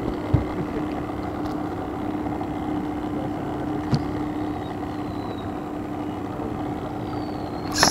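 A boat engine running steadily at a constant pitch, with two light knocks along the way and a short burst of handling noise at the very end.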